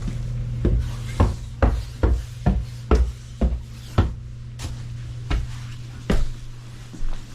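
Footsteps knocking on wooden stairs, about two steps a second, slowing and stopping before the end, over a steady low hum.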